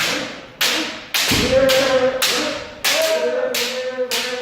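Kendo footwork practice: sharp stamping cracks on a wooden dojo floor, about six in quick succession and one heavier thud about a second in, each with a shouted kiai.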